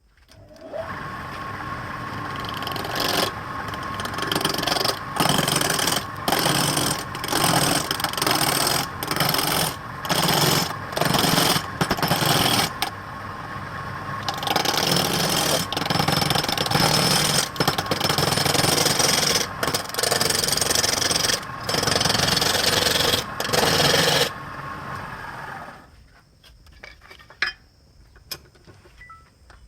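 A motor-driven tool running with a steady whine and grinding in repeated surges about once a second. It stops about 25 seconds in.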